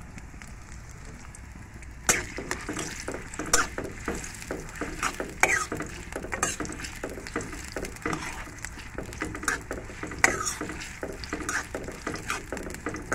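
Metal spatula stirring and scraping sliced onions frying in oil in a metal karahi, with a sizzle under it. The stirring starts about two seconds in: repeated, irregular scrapes and clinks of metal on metal.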